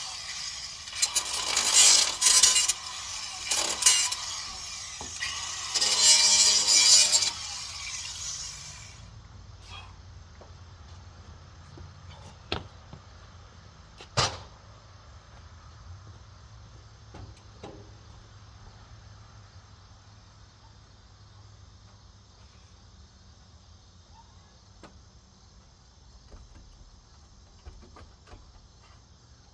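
Loud, rasping power-tool work in several short bursts during the first several seconds, then a low steady hum with a few scattered sharp knocks and clicks.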